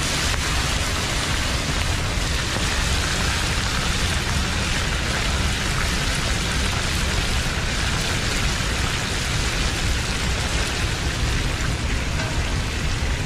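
Steady, even hiss of water that does not change in level.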